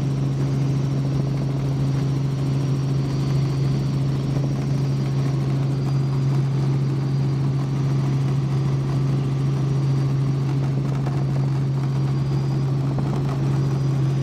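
Helicopter in steady flight heard from inside the cabin: a constant low drone with a strong steady hum and a faint high whine.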